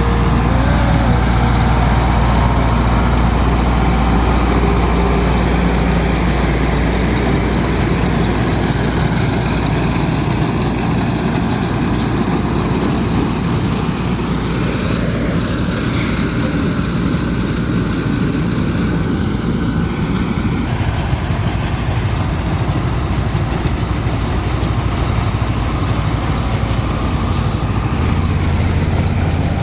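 Farm tractor engine running steadily and loud, with a shift in its tone about two-thirds of the way through.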